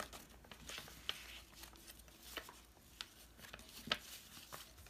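Faint handling of paper on a work table: soft rustling with a few scattered light taps and clicks, the sharpest near the end.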